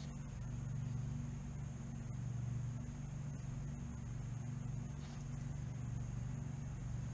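A steady low mechanical hum, even in level and unchanging throughout.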